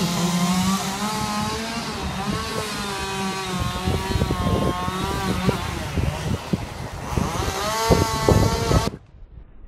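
Chainsaw running and revving up and down during tree felling, with short knocks and cracks mixed in, cutting off suddenly near the end.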